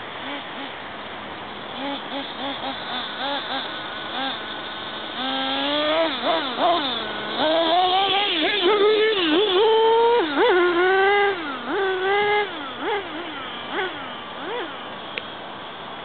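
Multiplex Blizzard RC plane's 1000 W brushless electric motor and propeller whining in flight, the pitch repeatedly swooping up and down with throttle changes and passes. Faint at first, it grows louder from about five seconds in and fades again near the end.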